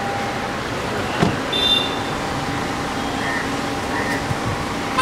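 An SUV door shuts with a single thump about a second in, over steady street and traffic noise. A brief high tone follows just after.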